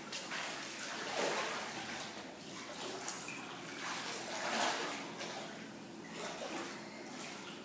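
Water splashing from a child swimming backstroke, her finned kicks and arm strokes churning the pool surface in repeated swells.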